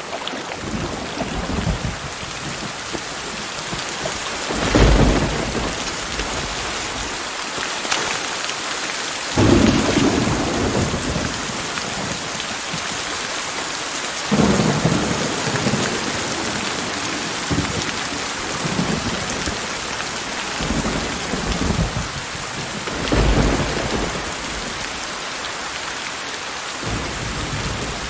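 Heavy rain falling in a steady hiss, with several rolls of thunder rumbling up and fading: about 5, 10, 14 and 23 seconds in.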